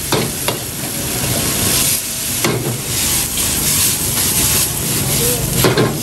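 Noodles sizzling in a hot wok as they are stir-fried, with a metal ladle scraping and clanking against the wok several times.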